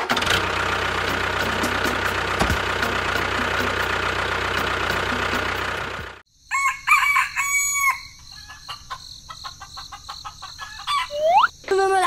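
A steady, dense motor-like running noise that cuts off abruptly about six seconds in. Then bird calls sound over a steady high insect trill.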